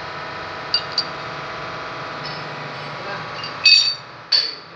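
A machine's motor running with a steady hum. There are two light ticks about a second in, then loud metallic clinks twice near the end.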